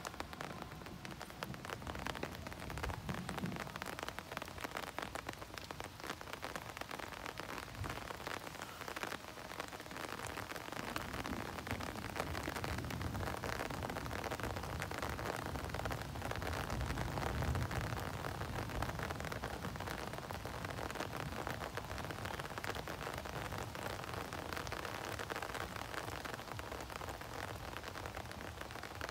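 Rain falling steadily during a thunderstorm, a dense patter of drops hitting surfaces. A low rumble swells up and fades again around the middle.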